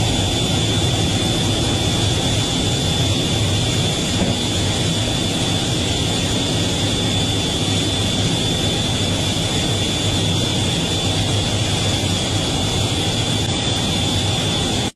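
Steady jet noise inside an F/A-18 Super Hornet's cockpit during climb-out, with the landing gear retracting. A constant high whine sits over a low rumble from the twin jet engines.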